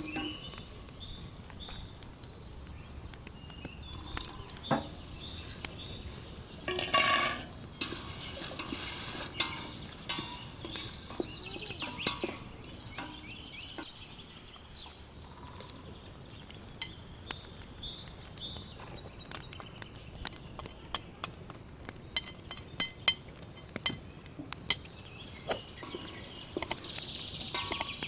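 Cooking sounds: metal utensils and dishes clinking, with stirring and liquid sounds, as scattered sharp clicks that come thicker in the second half.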